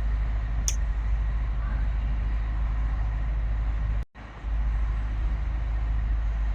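Steady low rumble of outdoor background noise, with a brief sharp click under a second in and a short gap in the sound about four seconds in.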